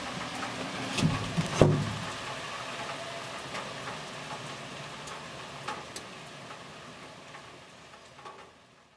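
Street ambience: a steady hiss of noise, with scattered sharp clicks and a couple of louder knocks a second or so in, fading out gradually to nothing.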